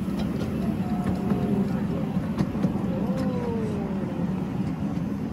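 Small tourist train's locomotive engine running steadily with a low hum, with faint voices over it.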